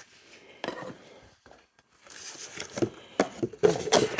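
Cardboard shipping box being cut open along its tape and the flaps pulled apart: irregular tearing, crinkling and scraping with sharp knocks, sparse at first and busier and louder in the second half.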